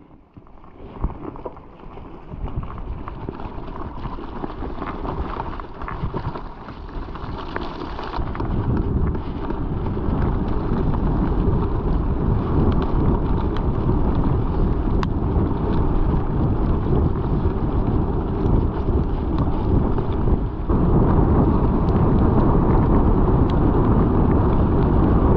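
Wind noise on the camera's microphone during a mountain-bike ride: a low rushing noise that builds up from quiet over the first several seconds and steps louder about twenty seconds in.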